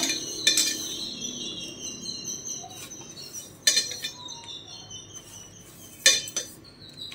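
Small stainless-steel measuring cup knocking and scraping against a steel plate as grated jaggery is scooped and pressed into it: a few sharp clinks, two close together near the end. Faint high chirping runs underneath.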